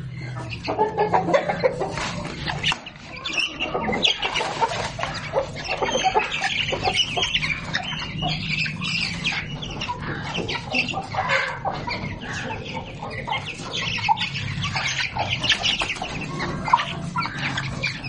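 Several chickens clucking almost without pause, with many short clicks and taps mixed in.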